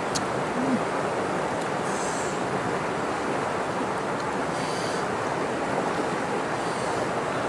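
Steady rushing of river water flowing over rocks, with a couple of brief faint high hisses about two and five seconds in.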